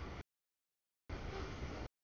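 Passing freight train's wheel and rail rumble, heard in short chunks that cut in and out with dead silence between: the audio feed keeps dropping out. There is a brief piece at the start and a longer one of nearly a second in the second half.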